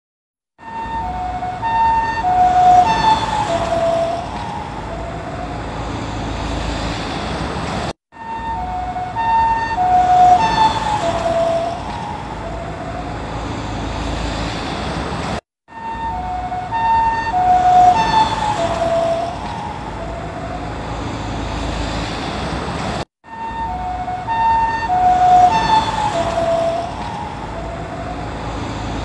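Ambulance two-tone hi-lo siren approaching and passing, its pitch dropping as it goes by (the Doppler effect), then fading, with engine and road noise beneath. The same pass of about seven and a half seconds repeats four times with a brief silence between.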